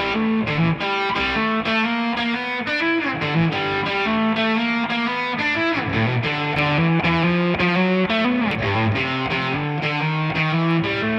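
A multitrack music mix playing back, led by distorted electric guitar, with the chords changing every second or so.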